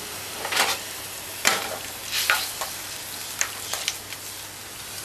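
Thin gravy of browning, water and soy sauce sizzling and bubbling around fried snapper in a hot pan, a steady hiss broken by a handful of short, louder sputters as a spoon stirs it.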